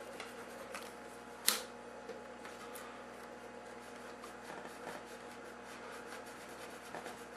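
A putty knife being worked into the glued seam of a wooden cabinet: faint scraping and rubbing with small scattered ticks, and one sharp click about a second and a half in. A faint steady hum lies underneath.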